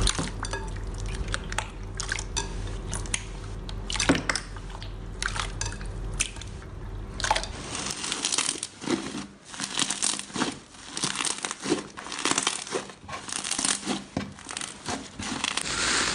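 Slime being squeezed and poked by hand: a quick run of sticky crackles, small pops and squishes that grows busier about halfway through. A low steady hum sits under the first half and stops about halfway.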